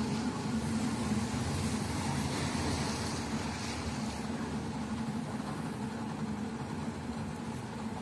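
Electric potter's wheel motor running steadily with a low hum while the wheel spins.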